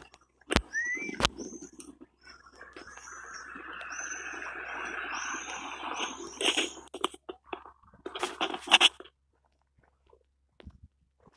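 Small birds chirping over and over in short, high notes above a steady street hum, with a couple of sharp knocks near the start and two louder rustling bursts later. The sound drops away almost completely near the end.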